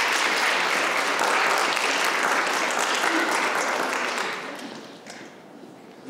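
Audience applauding, steady at first and then dying away about four to five seconds in.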